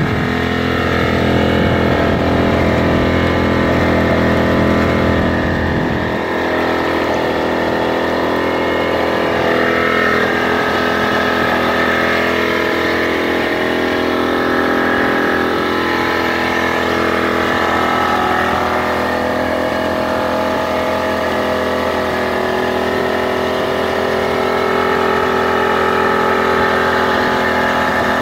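Inboard engine of a small vintage wooden motor boat running steadily while the boat is underway, a loud, even drone with only slight changes in pitch.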